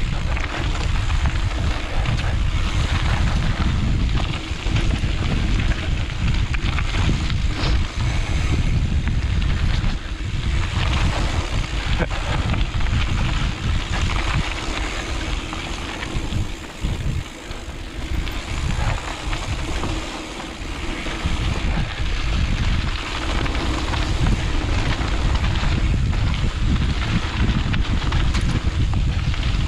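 Wind rushing over the microphone on a fast mountain-bike descent, with tyre and trail noise underneath; it eases briefly about two-thirds of the way through.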